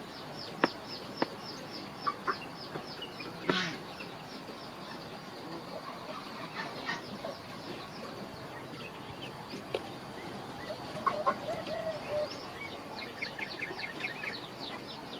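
Chickens clucking, with long runs of quick high-pitched chirps and a few sharp clicks.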